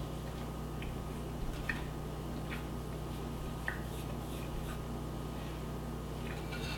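A man chewing a bite of a breaded chicken sandwich, with a few faint, soft mouth clicks over a steady low hum.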